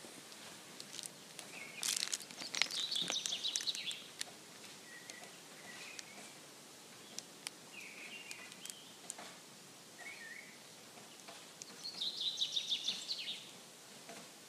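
Songbirds singing outdoors over a faint steady background: a burst of rapid, high twittering song about two seconds in and another near the end, with short single chirps between them. A few faint sharp clicks are scattered through.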